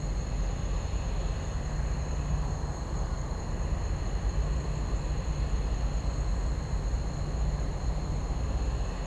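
Steady low rumble with a constant high-pitched whine.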